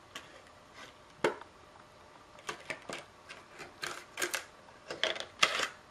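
Irregular small clicks and light plastic taps from hands working on an opened PS3 Slim Blu-ray drive while its data cable is unclipped and pulled out; the sharpest click comes just over a second in, with a cluster of quicker clicks near the end.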